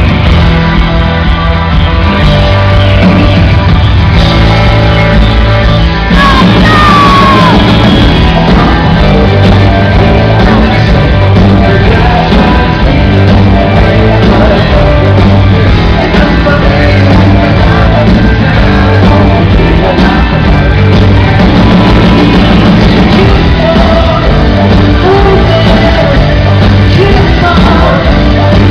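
Live rock band playing a song with drums, bass and guitar, loud and steady, echoing in a large hall; a lead vocal joins about six seconds in.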